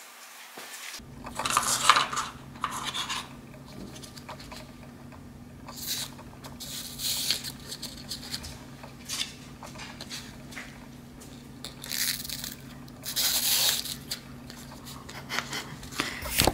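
Intermittent rustling and light clicks from cheek swabs, their plastic sleeves and paper cups being handled on a table, with a few louder rustles. A steady low hum comes in about a second in.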